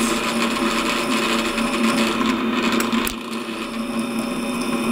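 Drill press running with a hand-ground twist drill cutting into a metal plate: a steady motor hum under the rasp of the bit throwing chips, with a click about three seconds in. The bit's back relief angle is off, so it rubs and welds chips onto the relief as it cuts.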